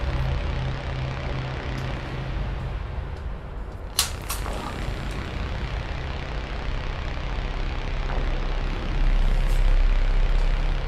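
Low, steady rumbling drone of tense film sound design, with a single sharp hit about four seconds in and a swell louder near the end.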